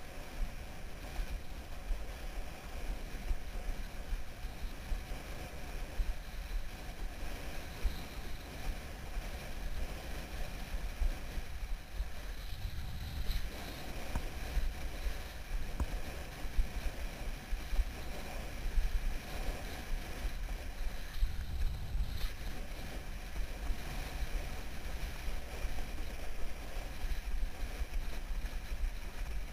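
Windsurf speed board planing fast over choppy water: water rushing and slapping under the hull, with wind buffeting the microphone in an uneven low rumble.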